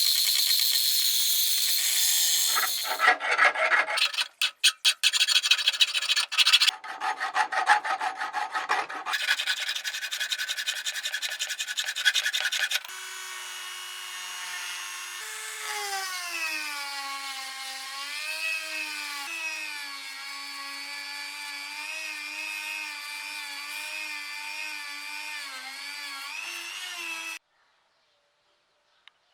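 Metalworking on leaf-spring steel: a few seconds of hissing, then irregular rasping strokes like filing or hand-sawing. After that comes a steady motor whine whose pitch wavers up and down, typical of a power tool under varying load, which cuts off abruptly near the end.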